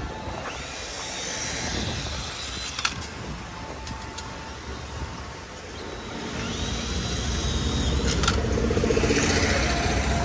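A motor vehicle's engine running amid road and traffic noise. It grows louder over the last few seconds, with a couple of sharp clicks and two brief high steady squeals.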